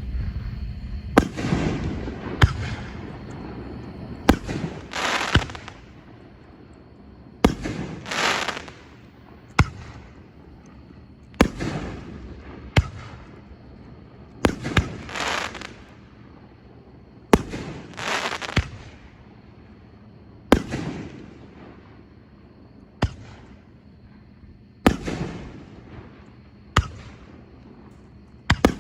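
Consumer aerial fireworks going off: a series of sharp bangs, mostly two to three seconds apart. Several are followed by a short burst of hissing crackle.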